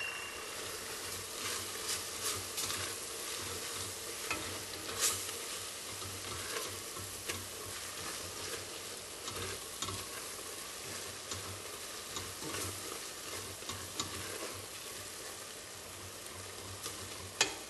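Onions and tomatoes sizzling and bubbling in a stainless steel stockpot while a spatula stirs through them, scraping and clicking against the pot at irregular moments. A sharper knock comes near the end.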